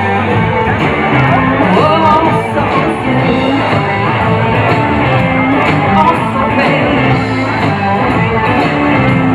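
Live rock band playing through a PA, with amplified guitar and a singer, heard from inside the crowd in front of the stage.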